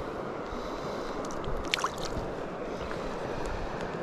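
Steady rush of flowing river water, with a short falling whistle a little under halfway through.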